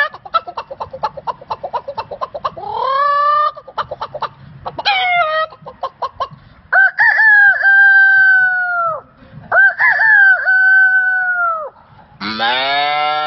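A man imitating chickens with his voice: quick repeated clucking for the first few seconds, then two long rooster crows. Near the end a lower, louder drawn-out call begins.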